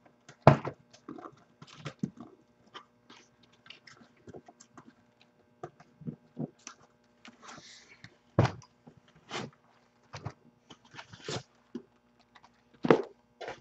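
Sealed cardboard hobby boxes being lifted out of a cardboard shipping case and set down: irregular knocks of box on box and box on table, with short scrapes of cardboard sliding against cardboard. The sharpest knocks come about half a second in, around eight and a half seconds in, and near the end.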